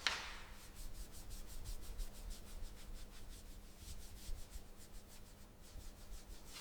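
Rubbing or sanding by hand: quick, even back-and-forth strokes, several a second, scraping over a surface.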